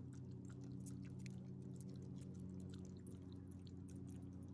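Small dog chewing food taken from a hand: many quick, wet smacking clicks, over a steady low hum.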